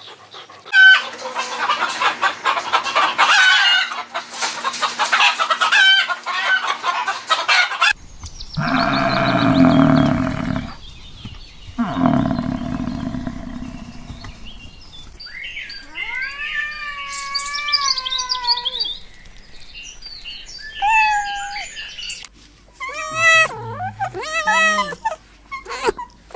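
Chickens: a flock of hens clucking rapidly, then long loud calls and gliding crows from a rooster. A run of short, repeated pitched calls comes near the end.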